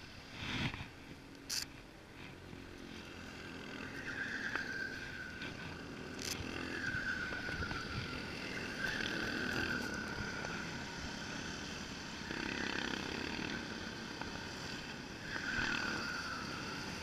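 Go-kart engines whining as karts pass on the track, swelling and fading several times. A few sharp clicks come near the start.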